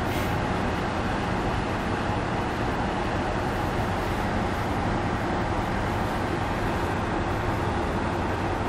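Steady road noise of a BMW car driving at cruising speed, heard from inside the cabin: an even rush of tyre and wind noise over a low hum.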